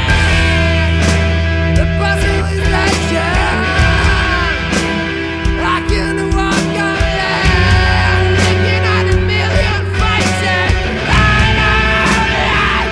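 Post-hardcore rock recording: a full band of guitars, bass and drums playing, with a voice singing over it.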